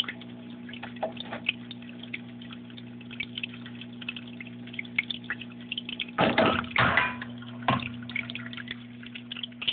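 A lamp falling over: a clatter of knocks about six seconds in and another knock about a second later, over a steady low electrical hum and scattered small clicks.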